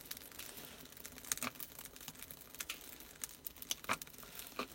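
Faint, scattered crackles and rustles of birch bark and small kindling as a wood fire is being started.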